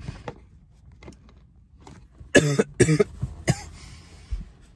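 A man coughing from a hit of smoke: two coughs in quick succession about two and a half seconds in, then a smaller one a moment later.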